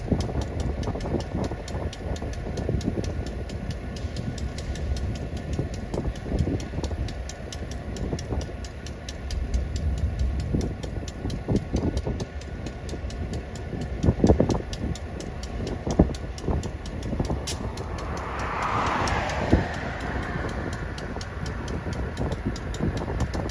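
Amtrak Sunset Limited train with a steady low rumble, broken by several sharp clanks. A brief rushing noise comes about nineteen seconds in.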